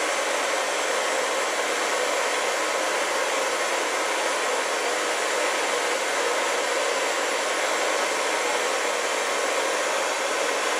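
Spirit box sweeping through radio frequencies, giving a steady, unbroken hiss of static.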